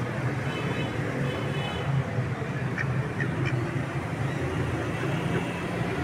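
A duck quacking twice in the first two seconds, over a steady low rumble of street traffic.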